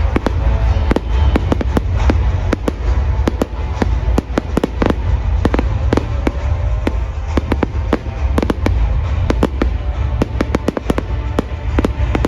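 Fireworks display: dense, irregular sharp bangs and crackles, several a second, over a constant heavy low rumble, with music playing underneath.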